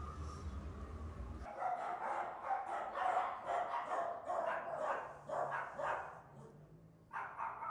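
A dog barking rapidly and repeatedly, about three barks a second, starting about a second and a half in; after a short pause, a few more barks near the end.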